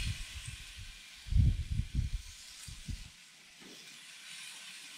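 Steak sizzling on hot grill grates, a steady hiss, with a few low thumps between about one and a half and three seconds in.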